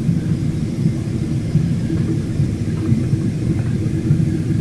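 Steady low roar of airliner cabin noise, jet engines and rushing air, heard from inside the cabin while the plane climbs after take-off.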